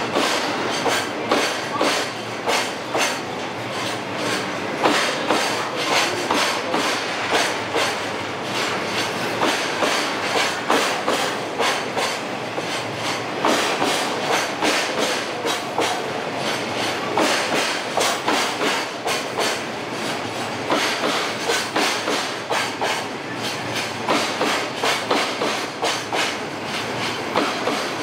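Container flat wagons of a departing freight train rolling past, their wheels clacking over the rail joints in a steady, unbroken run of clicks as the train picks up speed.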